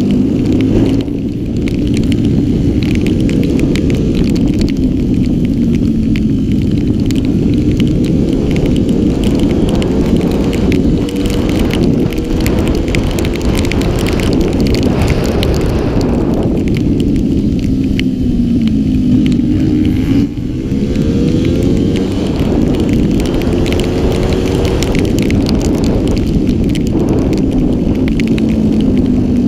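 Honda 70cc street-class racing bike's single-cylinder engine heard onboard at race pace, revving up along the straights and dropping off for the corners, over and over; it backs off sharply about a second in and again about two-thirds of the way through. Wind rushes and crackles on the microphone.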